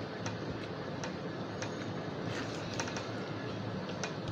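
Small irregular clicks and smacks of two people eating rice and curry with their hands from plates, a quick flurry of them a little past the middle, over a steady hiss.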